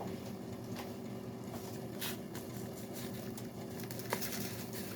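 Steady low hum of a running kitchen appliance, with a few faint light taps and clicks from breadcrumbs being sprinkled and handled over the salmon.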